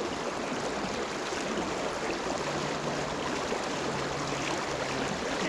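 Provo River flowing over a rocky run: a steady rush of moving water.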